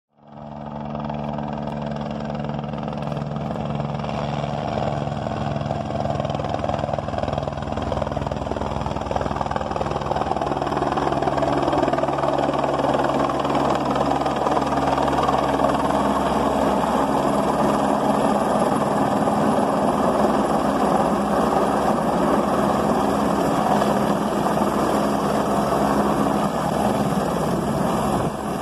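Helicopter in flight: a steady rotor and engine drone that starts suddenly, grows louder over the first dozen seconds, then holds.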